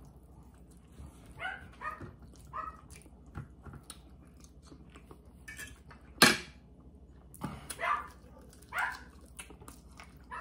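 A dog whining and yipping in several short, high cries, with one sharp, loud sound about six seconds in.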